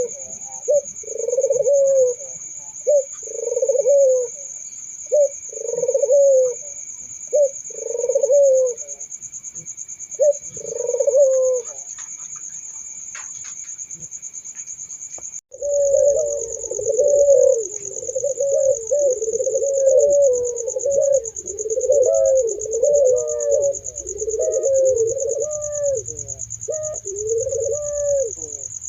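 Puter doves (ringneck doves) cooing in a series of repeated coos, one about every second. About halfway through, the sound cuts to several doves cooing at once, their coos overlapping. A steady high-pitched trill runs behind the coos throughout.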